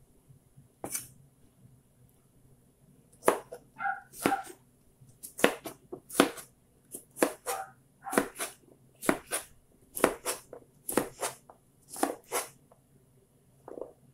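Chef's knife chopping zucchini on a plastic cutting board: quick sharp knocks, about two a second, starting about three seconds in and stopping near the end. A dog yips a few times among the chops.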